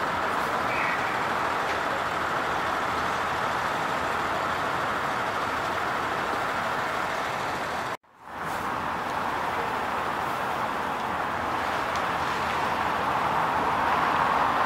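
Steady outdoor city ambience, mostly a constant hum of road traffic. About halfway through it cuts out abruptly for a moment and fades back in.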